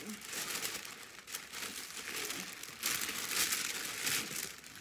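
Tissue wrapping paper rustling and crinkling as hands pull it out of a gift box. It grows louder about three seconds in.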